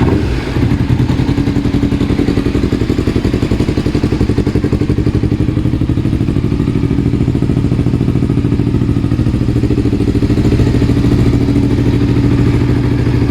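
Yamaha R25's parallel-twin engine running steadily at an even speed through a Comm Pro aftermarket exhaust with a 63 mm inlet, a pulsing exhaust note without revving.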